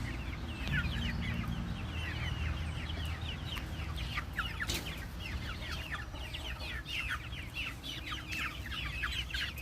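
A flock of young chickens peeping and cheeping: many short, high, falling calls overlapping continuously.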